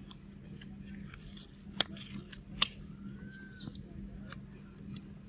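A macaque eating papaya close by: wet chewing and lip smacking, with a string of small clicks and two sharp, loud smacks a little under a second apart near the middle. A short rising-and-falling whistled call sounds once, about three seconds in.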